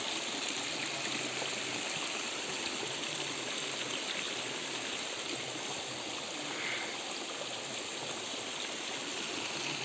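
Water from a mountain spring running in a steady stream.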